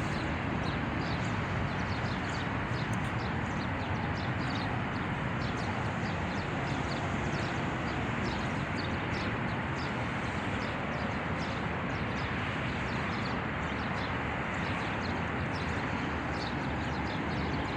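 A flock of small birds chirping continuously in quick, high, overlapping chirps, over a steady background rush like distant traffic.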